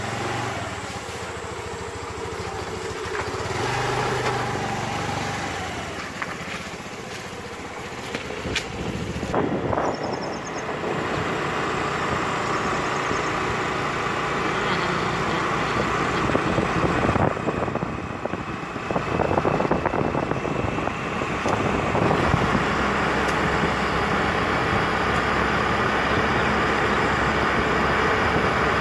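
Honda scooter's engine running as it rides off along a road. Road and wind noise grow louder about ten seconds in as it picks up speed.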